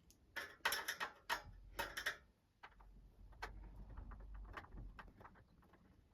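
Screws being taken out of a Sky+ box's casing with a screwdriver. A cluster of sharp clicks and taps comes in the first two seconds, then a run of small, rapid ticks.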